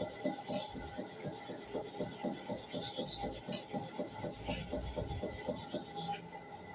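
A hair clipper blade being rubbed back and forth by hand against a sharpening surface, in quick even strokes of about four a second, easing off near the end.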